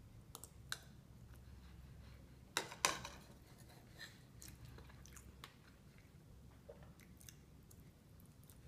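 A person chewing food quietly, with scattered small mouth clicks and two sharper clicks close together a little under three seconds in.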